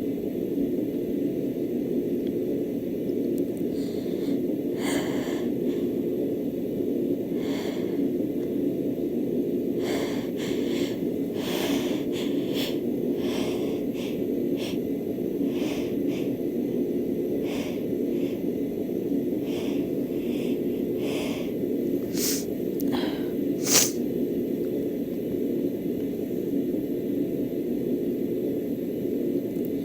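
A woman's repeated sharp, hitching in-breaths and snorts as a sneeze builds from dust irritation, about twenty short catches, ending in one brief sneeze about two-thirds of the way through. A steady low hum runs underneath.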